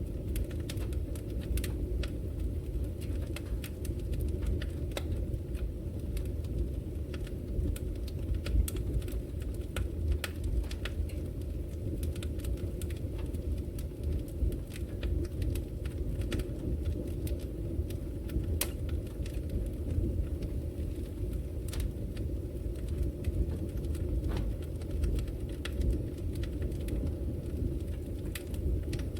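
Wood fire burning in a fireplace: a steady low rumble of flame with frequent sharp crackles and pops scattered at irregular intervals.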